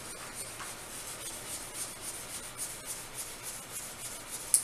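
A makeshift squeegee rubbing over a tablet screen protector in repeated short hissy strokes, pressing out the air pockets underneath. There is a sharp tick near the end.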